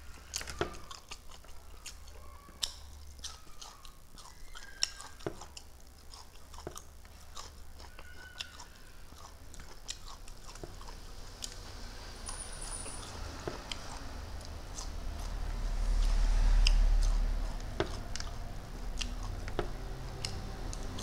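Close-up chewing and crunching of shrimp and rice, with many small sharp clicks and mouth smacks. A low rumble swells and fades about three-quarters of the way through, the loudest thing in the stretch.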